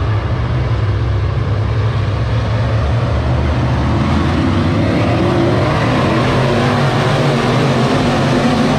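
A field of dirt late model race cars running their V8 engines at racing speed, a dense steady drone that builds about halfway through as the pack comes closer.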